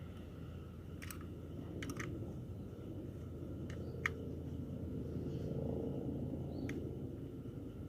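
Small hand tools working on the ignition condenser of a Kawasaki 250 Meguro SG motorcycle: a handful of short, sharp metal clicks and taps, spread out, over a steady low background rumble.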